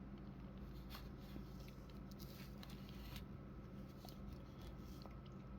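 Faint clicks and rubbing of plastic as a hand handles and poses an action figure, over a steady low room hum.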